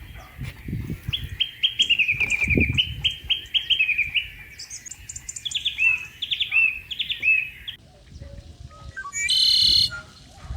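Small birds singing in quick repeated chirp series and short falling notes, with a low rumble underneath. Near the end a different, louder call sounds briefly, after an apparent cut.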